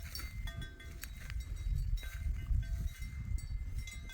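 Goats browsing in bush: low rustling and rumble with a few sharp snaps, and short ringing tones at fixed pitches that come and go several times.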